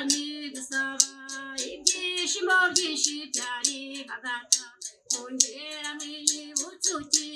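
A solo voice singing a slow song with long held notes, over a steady beat of sharp claps or rattle strikes.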